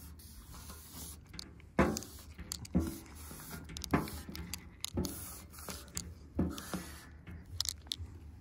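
Wide-tip paint marker pressed and dragged across the door of a small electrical box in quick strokes, making sharp scraping squeaks about once a second, six or seven in all.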